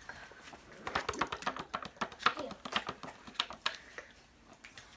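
A rapid run of crisp taps and crackles, starting about a second in and thinning out near four seconds, from cookies and their packaging being handled close to the microphone for ASMR.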